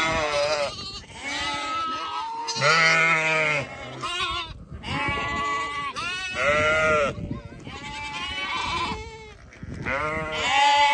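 Lambs and a ewe bleating again and again, about one call a second, often overlapping one another, as the lambs run up to their mother.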